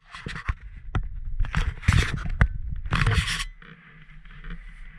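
Loud irregular scraping and rustling close to the microphone with sharp clicks, stopping about three and a half seconds in. A quieter steady low hum of idling snowmobile engines follows.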